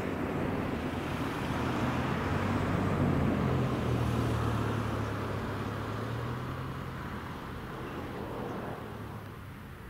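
Twin jet engines of an Airbus A320-family airliner running at low taxi power as it turns on the runway: a steady rushing noise with a low hum underneath, loudest about three seconds in and then slowly fading.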